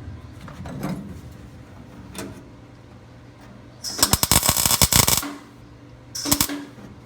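Arc welder crackling in a burst of a little over a second about four seconds in, then a brief second burst, tacking a thin sheet-metal patch panel; the arc burns a hole through the thin old metal. A steady low hum runs underneath.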